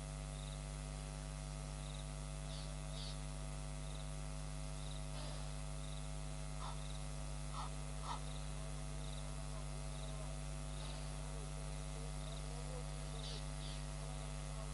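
Steady electrical mains hum running through the webcam's audio feed, with faint short animal chirps and calls scattered over it.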